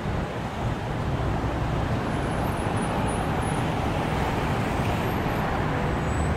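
Steady rumble of road traffic, strongest at the low end, with no distinct events.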